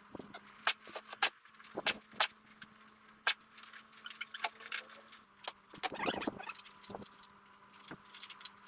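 Irregular sharp clicks and light clatter of a wiring loom being unplugged and handled: connectors and clips unclipping, with the harness rattling as it is lifted, the busiest clatter about six seconds in.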